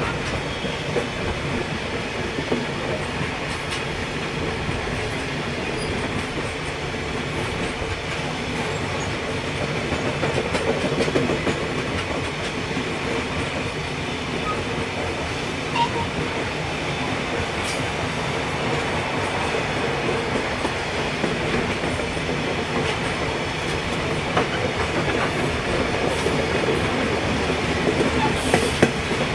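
Loaded coal hopper wagons of a heavy-haul freight train rolling past close by: a steady rumble of steel wheels on rail with scattered clicks as they pass.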